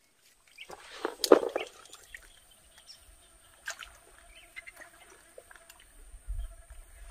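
A lure cast on a spinning rod: a sharp swish and splash about a second in, with faint bird chirps around it and a second sharp noise near the end.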